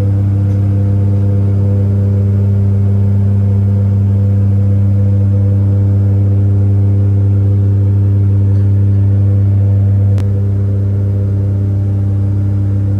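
Passenger airliner's engines droning steadily, heard from inside the cabin, with a slight sudden drop in level about ten seconds in.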